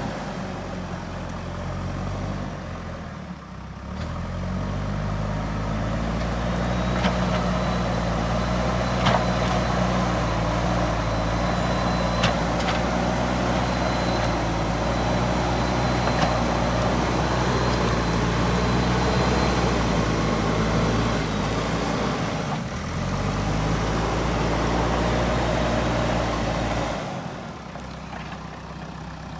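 JCB 3DX backhoe loader's diesel engine working under load: it revs up a few seconds in, holds a steady high working speed with a faint high whine and a few sharp metallic knocks, dips briefly, then drops back to a lower idle near the end.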